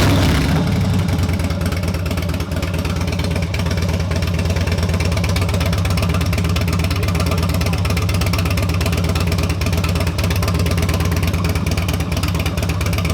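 Harley-Davidson Sportster 883's V-twin running at a steady speed through a newly installed Two Brothers Racing Comp S exhaust, a low, even rumble.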